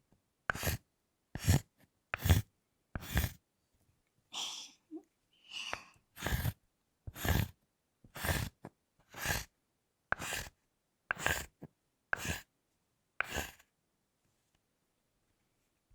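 Butter knife worked against a thick bar of chocolate in short, even strokes about once a second, each a brief scrape with a low knock. There is a softer, hissier scrape or two around the middle, and the strokes stop a couple of seconds before the end.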